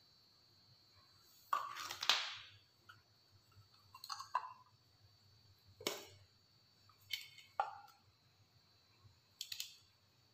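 Plastic packaging and a cable being handled: short scattered rustles and clicks, the longest about two seconds in.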